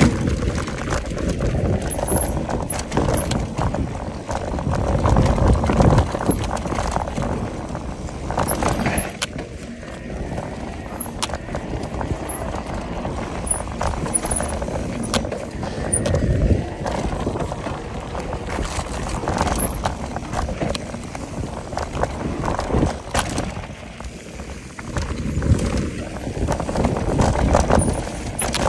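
Mountain bike riding down a dry dirt singletrack: tyres rolling and crunching over dirt and stones, with the bike rattling and knocking over bumps and wind rushing over the microphone. The noise surges and eases with the terrain.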